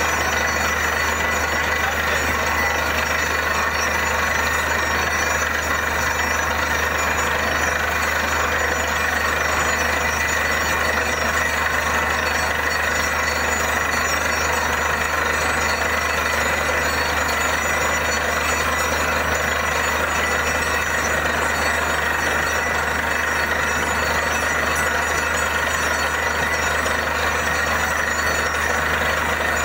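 Borewell drilling rig running steadily under load: a continuous heavy engine and compressor drone with the rattling hammer of the drill underneath, unchanging throughout.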